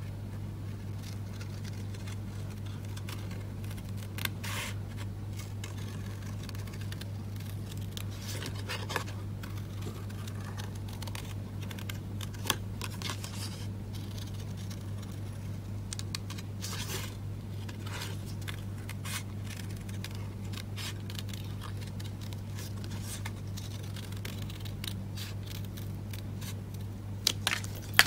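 Small craft scissors snipping around a stamped image in white cardstock (fussy cutting), with irregular short snips and paper rustling over a steady low hum. A couple of sharper clicks come near the end.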